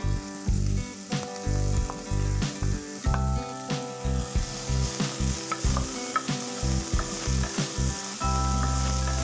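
Chopped onions sizzling as they fry in hot oil in a pressure cooker pot. A spatula stirs them, with repeated scrapes and taps against the pot.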